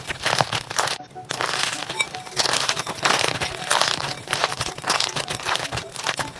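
Slime being squeezed and pressed by hand, giving dense crackling, crinkly pops. There is a short break about a second in.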